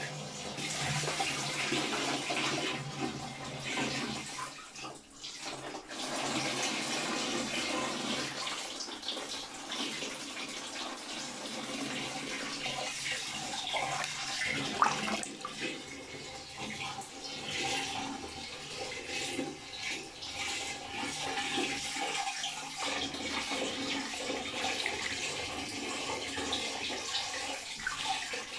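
Water swirling in a whirlpool vortex, stirred by hand: a continuous rushing, splashing churn, with one sharp splash about halfway through.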